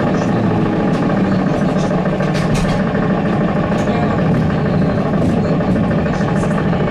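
Cabin noise inside a ZiU-682G trolleybus on the move: a steady running noise from the road and the drive, with scattered light clicks and rattles from the body.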